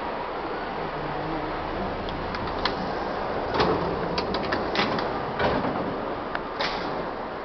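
R-32 subway car's end door being worked open: a series of sharp clicks and knocks from the handle, latch and door over a steady low rumble of the train.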